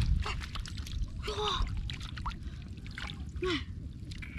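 Muddy water splashing and sloshing as a fish is grabbed by hand in a shallow ditch, a run of short sharp splashes over a steady low rumble. Two brief voice sounds come about a second and a half in and again near three and a half seconds.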